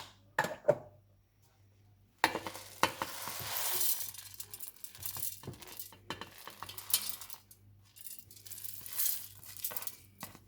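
Dry coriander seeds poured from a plate into a mixer-grinder jar, rattling and clinking against the jar. A few light knocks come first, then a long pour of about two seconds, then shorter pours with gaps.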